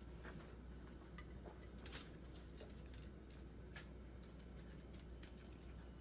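Very quiet room with a low steady hum and a handful of faint light clicks scattered through it, the clearest about two seconds in, as small dogs shift about on a tiled floor.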